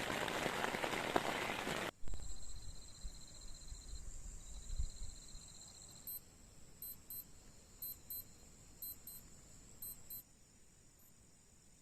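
Heavy rain pattering for about two seconds, then a sudden cut to a quiet background of steady high-pitched insect trilling with short, evenly repeated high chirps.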